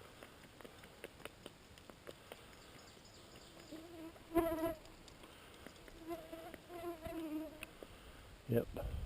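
Flying insect buzzing close to the microphone: a steady pitched whine that passes briefly about four seconds in and again for a second and a half soon after, with a slight waver in pitch.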